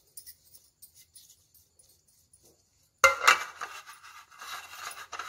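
Near quiet for about three seconds, then sudden metal clinks and clatter as a metal cake tin is handled and moved about on the counter.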